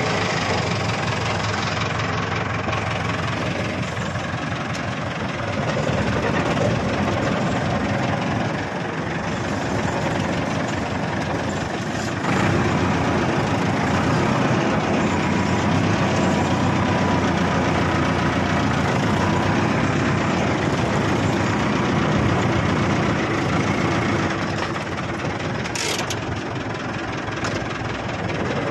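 Diesel farm tractor engine running steadily under load, with a rough, knocking note. The sound gets louder about 12 seconds in.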